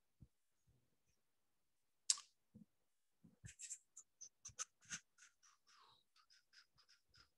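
Faint, light clicking from a computer keyboard and mouse being worked: one sharper click about two seconds in, then a quick run of clicks several times a second.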